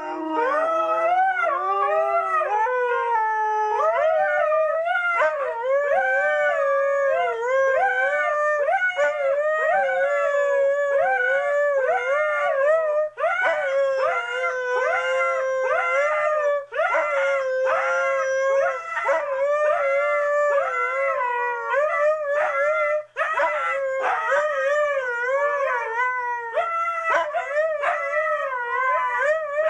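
Two Siberian huskies howling back and forth, egging each other on. The calls are nearly continuous and waver up and down in pitch, often overlapping.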